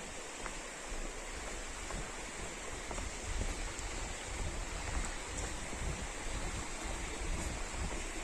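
Steady rushing of a mountain valley stream, with a low rumble that grows somewhat stronger after about three seconds.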